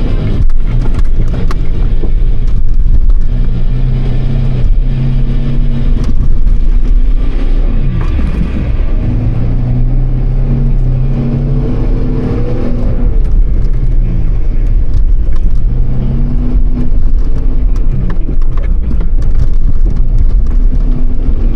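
Mitsubishi Pajero engine working off-road, its pitch dropping and rising again several times as the throttle comes on and off, over a heavy low rumble.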